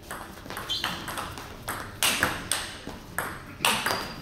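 Table tennis rally: the ball clicks sharply off bats and table in quick alternation, about every half second.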